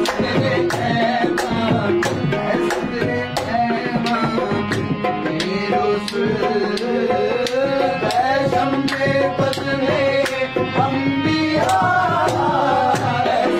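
Devotional kalam sung by a voice over tabla keeping a steady beat.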